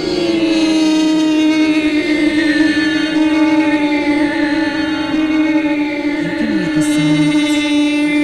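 Chanted music: one long note held steady throughout, with a layered drone of tones above it.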